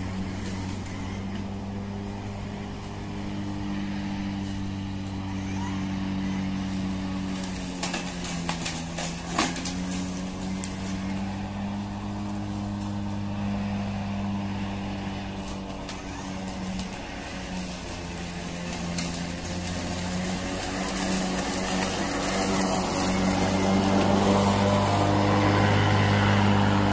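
Kobalt 40V brushless battery lawn mower running while cutting tall grass, its motor and blade giving a steady hum. The pitch sags briefly about nine seconds in, with a couple of sharp clicks, and the hum grows louder near the end as the mower comes close.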